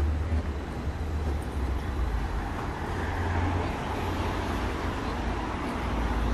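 City street traffic noise: a steady low rumble of vehicles over an even hiss of road noise.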